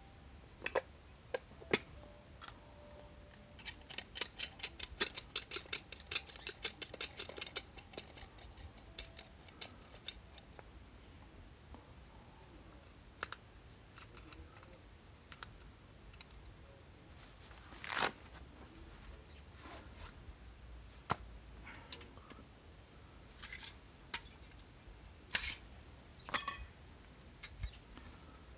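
Light clicks, taps and scraping from handling a Coleman hot sandwich maker, with a quick run of small clicks a few seconds in and a sharper knock about two thirds of the way through.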